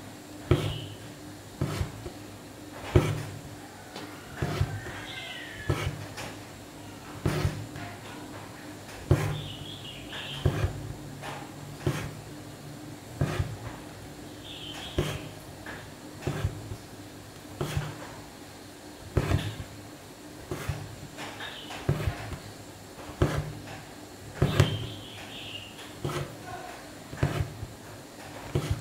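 Hand embroidery needle repeatedly punching through taut fabric, a soft knock about every second and a bit, with brief high squeaks as the thread is drawn through.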